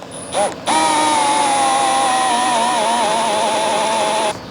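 A small electric power tool motor, like a cordless drill, starts with a short blip, then runs for about three and a half seconds with a whine that wavers in pitch as the load changes. It stops abruptly.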